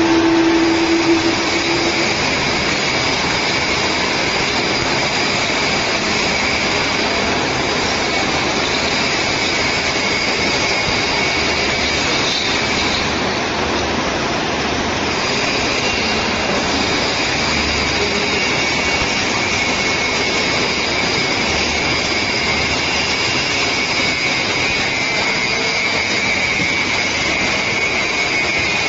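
Machinery running steadily: a continuous hiss with a faint high whine at two pitches, and a short steady hum in the first two seconds.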